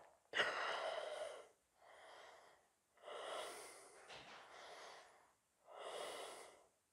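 A person breathing audibly while holding a yoga pose: about five separate breaths in and out, the first the loudest.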